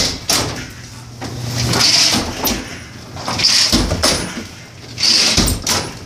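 A hand truck loaded with a washing machine worked step by step on wooden stairs: heavy thumps as it drops onto a step, about every second and a half, with hissing scrapes in between.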